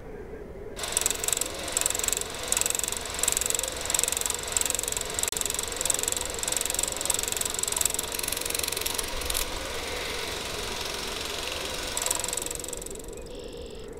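Film projector running: a rapid mechanical clatter with a high steady whine starts about a second in, settles into a steadier whirr after about nine seconds, flares once more and fades out near the end. A low wavering hum runs underneath.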